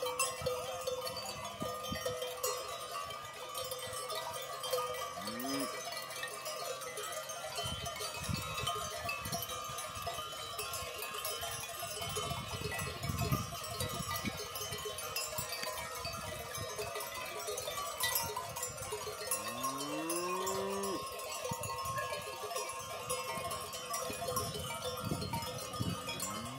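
Many cowbells clanking and jingling without pause as a herd of cattle moves and grazes, with cows mooing now and then, the longest moo about twenty seconds in.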